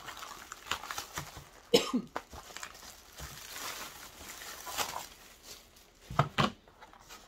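Clear plastic packaging crinkling and rustling as it is handled and pulled off a cardboard box of doll clothes. A few short, sharp sounds stand out, two of them close together near the end.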